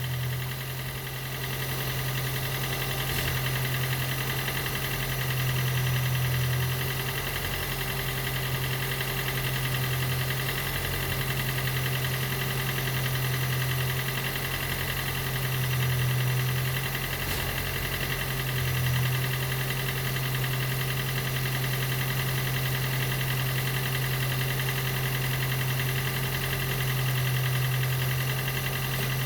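Toyota Prius Gen 2's 1.5-litre four-cylinder petrol engine running steadily after a hard no-start, charging the high-voltage battery. It makes a strong, even low hum that swells a little every few seconds.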